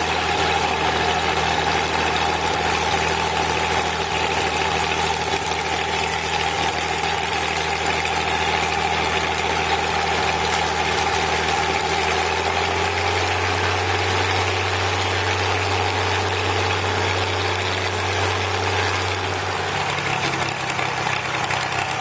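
Cessna 210's six-cylinder piston engine and propeller running at low taxi power, heard from inside the cabin. It is a steady engine drone whose low note shifts about halfway through and again near the end.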